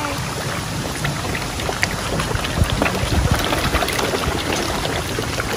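A crowd of koi splashing at the water's surface as they jostle for food: a steady patter of many small splashes and slaps.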